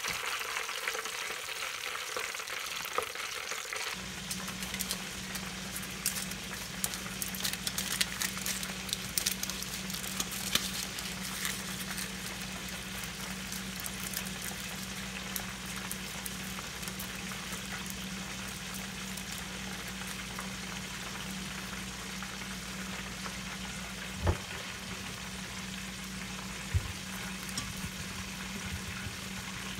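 Chicken drumsticks deep-frying in a pot of oil: a steady sizzle with scattered crackles. A steady low hum comes in about four seconds in, and there are two short knocks near the end.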